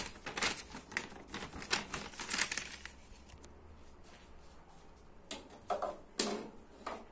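Plastic bag rustling and crinkling as frame parts are handled, followed by a few separate sharp knocks and clicks as the white rods and corner pieces of a delivery backpack's frame are handled.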